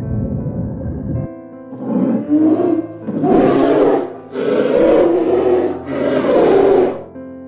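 A large animal gives four loud, rasping calls, each about a second long, starting about two seconds in, over soft background music with sustained keyboard-like tones.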